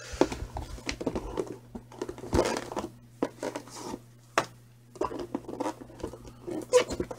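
Littmann stethoscope box being opened and handled: irregular rustling and scraping of cardboard with many sharp taps and clicks.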